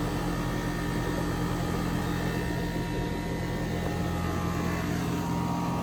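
Goodman central air conditioner's outdoor condensing unit running in cool mode, giving a steady hum under an even rush of air.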